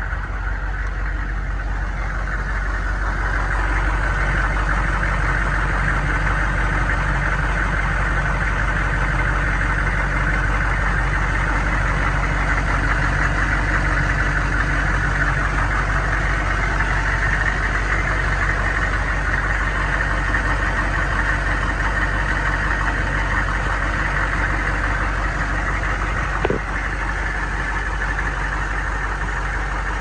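1999 Chevrolet step-van school bus engine idling steadily with the hood open. There is one brief knock about 26 seconds in.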